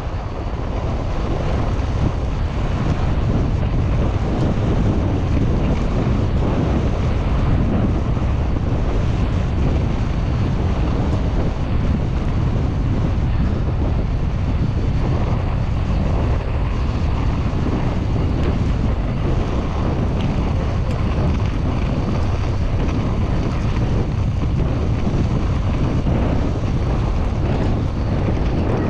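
Steady wind rush buffeting the microphone of a GoPro mounted on a fat bike, with the tyre running over packed snow, as the bike rides fast down a snow-covered ski slope.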